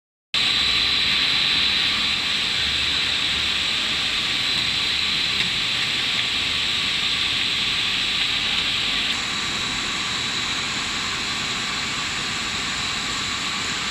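Steady machine noise of a running PET sheet extrusion line: a continuous hiss with a steady high-pitched whine over it, dropping slightly in level about nine seconds in.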